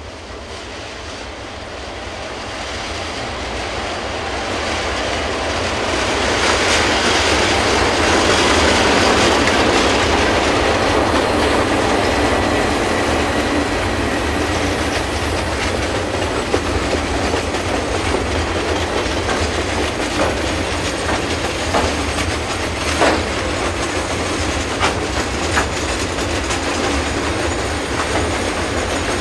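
A diesel-electric freight locomotive approaches and passes, growing steadily louder over the first eight seconds or so. A long string of milk tank wagons then rolls past with a steady clickety-clack of wheels over the rail joints and a few sharp knocks in the second half.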